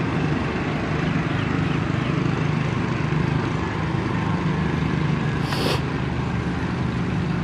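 GEU-40 diesel-electric locomotive approaching, its engine a steady low drone. A short sharp noise cuts in about five and a half seconds in.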